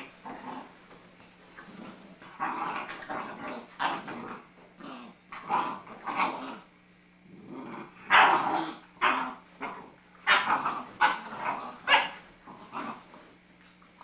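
Great Dane puppies growling and giving short barks as they play-fight, with a run of louder, sharp barks in the second half.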